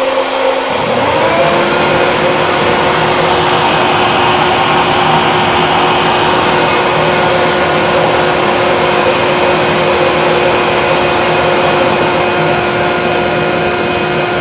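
Vacuum cleaner motor switched on by relay, spinning up about a second in and then running steadily with a rushing airflow, alongside the already-running router spindle of a home-built CNC machine.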